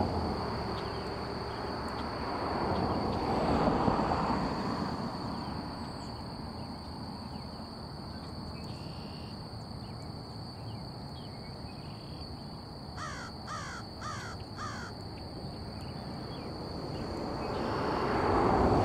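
Twin-engine business jet's engines running at taxi power, a steady hiss with a high whine. About two-thirds of the way through, a crow caws four times in quick succession.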